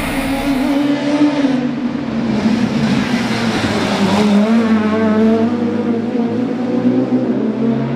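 Fiat Punto rally kitcar's engine running hard at high revs. Its pitch dips briefly about halfway through and climbs again, as at a gear change.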